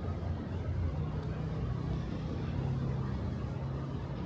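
Low hum of a motor vehicle engine running on the street, its pitch stepping up about a second in, over general street noise.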